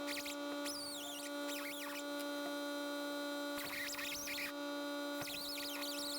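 A steady electrical hum with a few overtones, with high, wavering chirp-like sounds coming and going over it.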